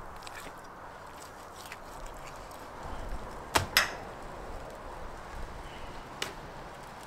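Pieces of raw meat set down on a wooden table: two sharp knocks close together about halfway through, then a lighter one near the end, over a low steady outdoor background.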